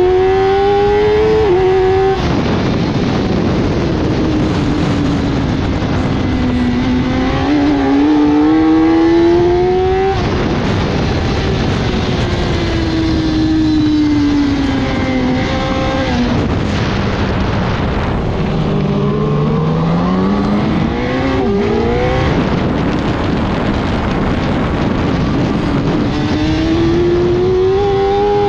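A 1000 cc superbike engine running hard on track, climbing in pitch through the gears and dropping sharply at upshifts about 2, 10 and 22 seconds in. Between about 10 and 19 seconds in, the pitch falls away as the bike slows, and it rises again near the end. A dense rush of wind noise runs under it.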